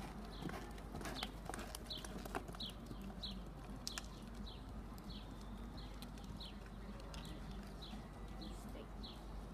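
Blue roan horse loping on soft arena dirt under saddle: hoofbeats and tack sounds in a steady rhythm, a little under two strides a second.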